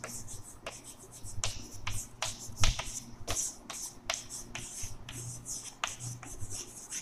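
Chalk writing on a blackboard: irregular sharp taps as the chalk strikes the board, with short scratchy strokes between them.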